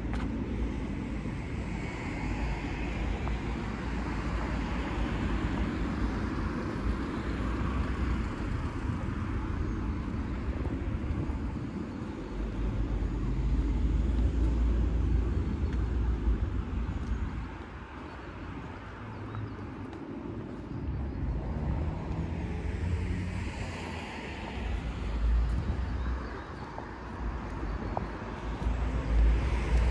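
Street ambience of road traffic: a steady background of vehicles, with cars passing close several times, each swelling and fading with a low rumble.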